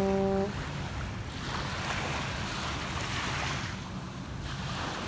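A steady horn note cuts off sharply about half a second in, followed by waves washing on the shore with wind buffeting the microphone, the surf swelling and easing.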